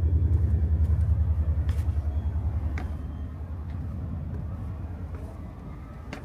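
A motor vehicle's engine rumbling low with a fast, even pulse, loudest at the start and fading away over the first three seconds. A few light taps of footsteps on stone steps.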